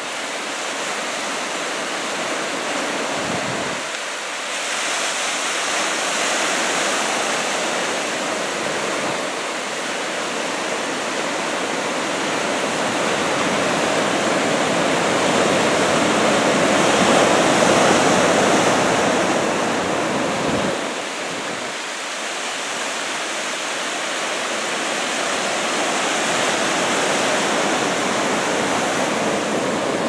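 Ocean waves breaking on the shore, a steady rush of white water that swells louder around the middle and eases off after.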